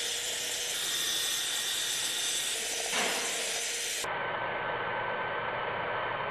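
Brake caliper being sprayed with aerosol cleaner in a steady hiss, which changes abruptly to a duller hiss about four seconds in.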